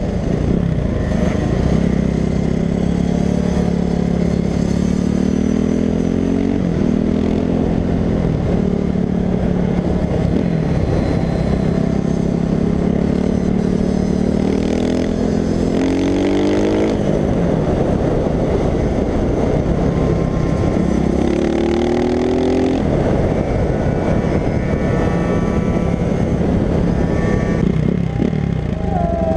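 Dirt bike engine under the rider accelerating through the gears. Its pitch climbs for a few seconds and drops at each upshift, several times over, with steady wind noise underneath.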